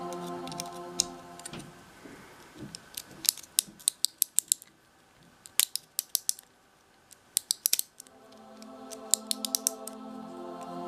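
Clockwork motor of a pre-war Schuco Examico being wound with its key, a new mainspring fitted: quick runs of sharp ratchet clicks in four bursts, among them a pop as the spring end seats on its catch. Soft background music fades out near the start and comes back about eight seconds in.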